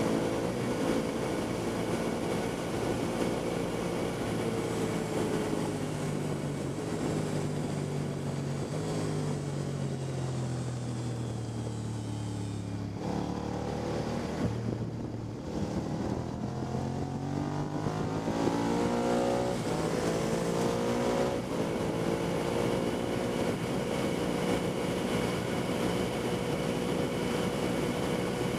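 Motorcycle engine heard from on the bike, with wind noise throughout. Its pitch falls slowly while slowing for a corner and drops sharply about thirteen seconds in. It then climbs again under acceleration and holds steady at speed near the end.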